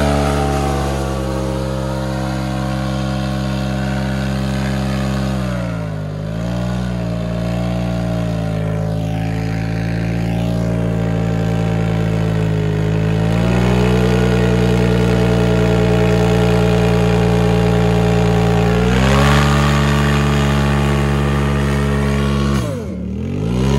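Polaris RZR Turbo's turbocharged twin-cylinder engine held at high revs in a burnout, spinning the rear tires in place. The revs sag briefly about six seconds in and again near the end, and step up a little twice in between.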